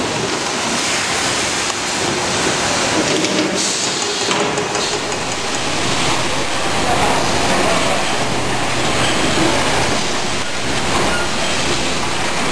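Automatic tub-filling and packaging line machinery running: a steady mechanical noise with no distinct single event.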